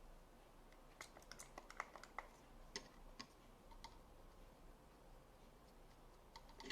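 Faint, quick light clicks and taps, about a dozen in a couple of seconds, then two more near the end, over near silence.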